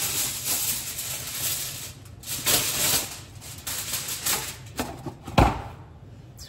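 Aluminum foil crinkling and rustling in irregular bursts, with a single thump about five and a half seconds in.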